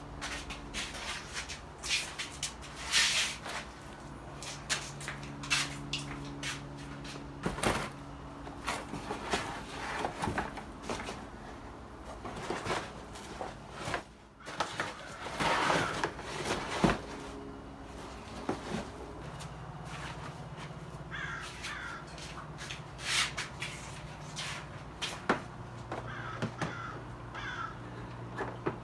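Irregular clicks and knocks of a plastic front lip being handled and pushed into place under a car's front bumper, with birds cawing.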